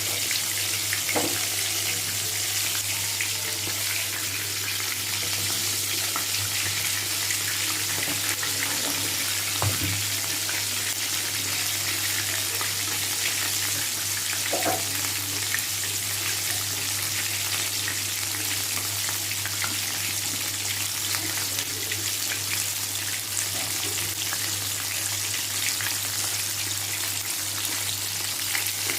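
Marinated, flour-coated chicken leg pieces deep-frying in hot oil, a steady sizzle, with a few light clicks of a utensil.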